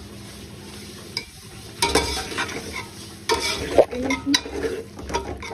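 Slotted metal spatula stirring and scraping through frying biryani masala in a metal pot, with a light sizzle. The scraping starts about two seconds in and comes in irregular bursts.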